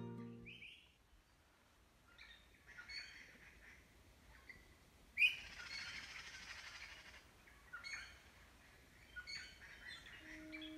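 Wild birds chirping and calling in short, scattered phrases, with a louder, busier burst of song about five seconds in.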